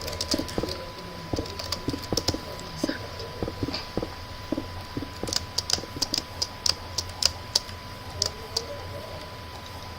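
A quick, irregular run of sharp light clicks, several a second, stopping about eight and a half seconds in, over a steady faint high tone.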